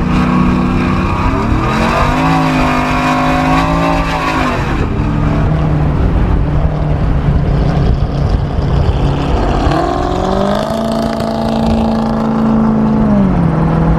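A car engine accelerating hard during a street race: twice its pitch climbs and holds at high revs before dropping off, with constant road and engine noise underneath.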